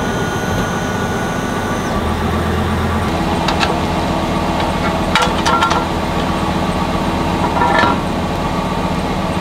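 Motorhome engine idling steadily, with sharp metallic clicks and clanks of a steel jack stand being set under the frame and its ratchet column pulled up: one clank midway, a quick cluster a little after, and another near the end.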